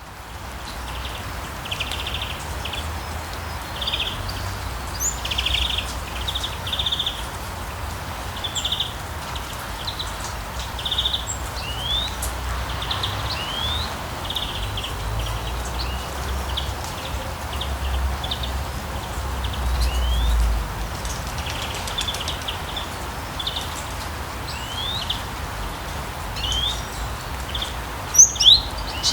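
Steady rain with birds singing: repeated short trills and quick rising chirps over the hiss of the rain, with a low rumble underneath that swells about two-thirds of the way in. A few louder, higher chirps come near the end.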